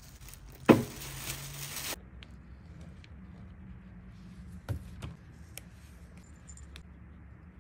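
A sharp knock about a second in, then a few faint clicks and taps.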